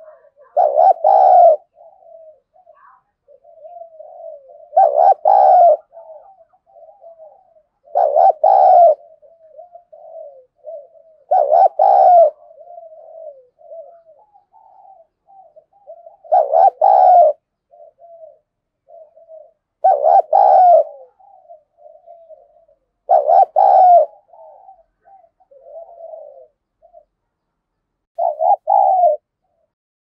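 Spotted dove cooing: a loud phrase about every three to four seconds, with softer, quicker coos in between. This is the fast challenge cooing (thúc đấu) of a caged decoy dove.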